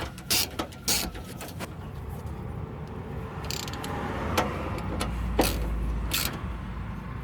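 Wrench and socket tightening the bolts of a sway bar bushing clamp: a few irregular clicks and knocks over a low steady rumble.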